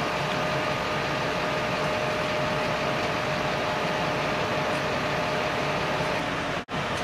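Steady drone of idling emergency-vehicle engines with a faint constant hum, cutting out for an instant near the end.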